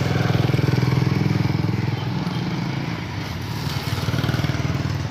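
Small vehicle engine running steadily with a fast, even firing beat, loudest in the first two seconds and easing off around three seconds in.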